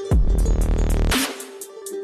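Electronic dubstep-style music: a heavy bass drop starting just after the beat, with a downward pitch sweep and a bright noisy crash about a second in, repeating every two seconds.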